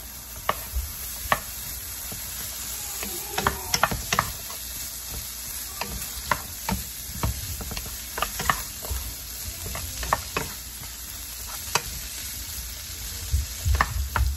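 Butter melting and sizzling in a hot nonstick skillet of drained string beans. A wooden spatula stirs the beans, knocking and scraping against the pan in irregular sharp clicks over the steady sizzle.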